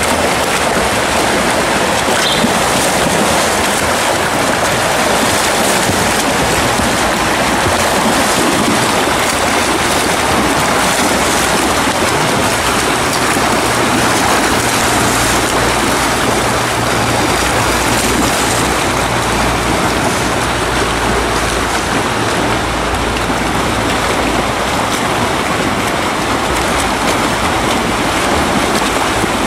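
Several swimmers swimming freestyle laps, their arm strokes and kicks splashing and churning the pool water in a steady wash of noise.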